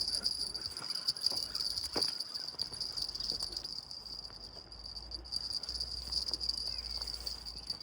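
Insects trilling steadily on one high pitch, with a few faint knocks and clicks.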